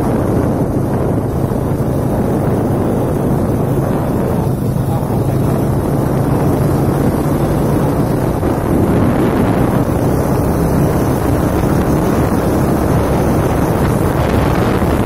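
Vehicle driving along a road: steady engine and road noise with a low hum, and wind rushing over the microphone.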